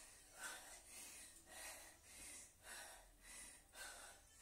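A woman breathing hard in short, faint huffs, about two a second, in rhythm with repeated punches during intense exercise.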